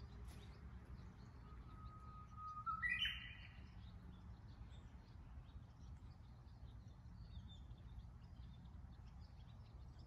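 A Japanese bush warbler (uguisu) sings its hō-hokekyo song once. It holds a long steady whistle, then breaks into a quick rising flourish about three seconds in. Faint short high chirps follow, over a low steady background rumble.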